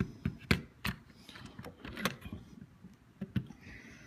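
Sharp, irregular clicks and knocks of an August Smart Lock body being handled and fitted onto the deadbolt's mounting on a door, with about five louder knocks among smaller handling noises.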